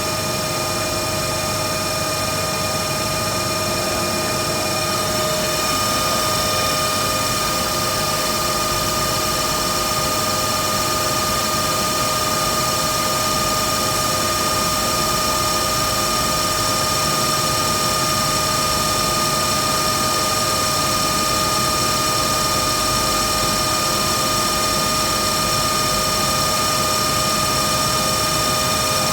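Blower running steadily: a constant rushing noise with a whine of several fixed tones on top, a sound described as abnormal for the blower.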